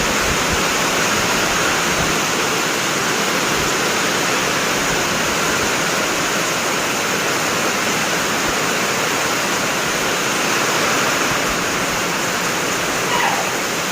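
Heavy rain pouring down in a windy storm: a steady, even rush of water.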